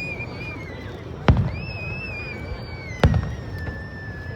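Fireworks: two aerial shells bursting with sharp booms, about a second and a half apart, with a low rumble after each. Long high whistles sound over them, each rising, holding, then sliding down.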